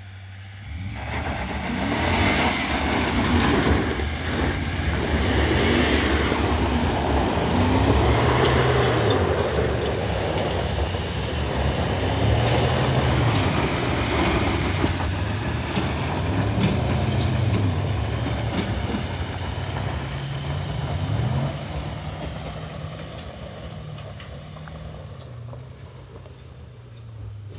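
Pickup truck engines revving hard and straining against a tow strap, the revs rising and falling again and again, with tires spinning and scrabbling on dry dirt. The sound eases off over the last few seconds.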